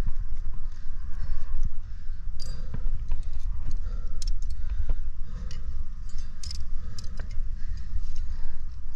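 Metal climbing gear (carabiners, quickdraws and cams racked on a harness) clinking and jingling in short sharp clicks as a climber moves and clips on rock, over a steady low rumble on the body-worn microphone.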